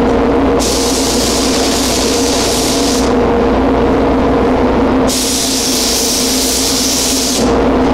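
Automotive paint spray gun hissing in two passes, each about two and a half seconds long, over a steady machine drone.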